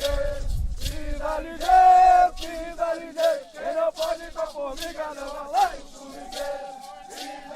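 A group of men chanting together in a traditional Indigenous song, with a steady percussive beat of a little under two strokes a second under the voices.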